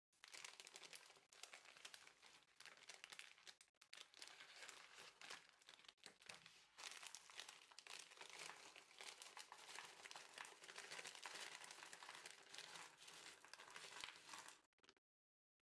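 Thin plastic candy bag crinkling continuously as hands handle it, tear it open and tip the candies out, stopping about a second before the end.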